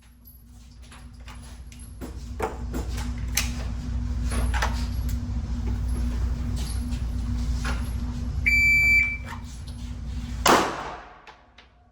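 A low rumble with a steady hum and scattered clicks and knocks, then a short electronic beep about eight and a half seconds in. A door thuds shut near the end, and the rumble falls away after it.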